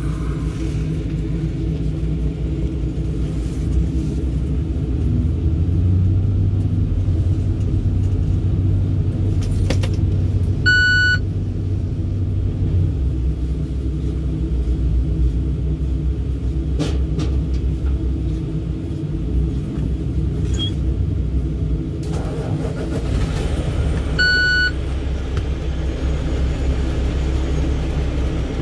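Steady low diesel-style engine rumble heard from inside a truck cab on a river ferry, growing heavier for several seconds in the middle. Two short electronic beeps sound, one a little before the middle and one near the end.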